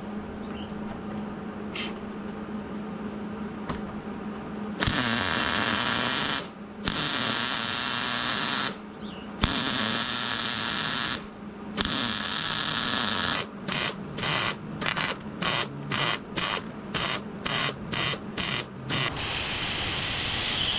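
MIG welder laying beads on steel: an even crackling hiss that starts and stops with the trigger, first in runs of a second or two, then a quick string of about ten short stitch welds at roughly two a second.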